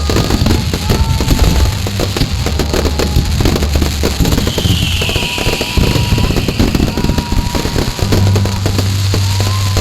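Fireworks crackling and popping in rapid succession over background music with a low, sustained bass, and a brief hissing rush about halfway through.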